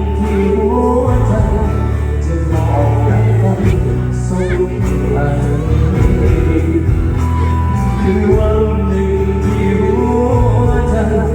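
Live Thai luk thung band playing with a male singer, over a steady heavy bass.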